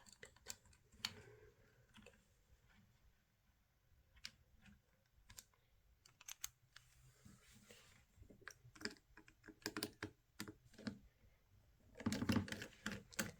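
Faint, irregular small clicks and taps of hand tools handled against a smartphone's frame and parts, growing busier toward the end.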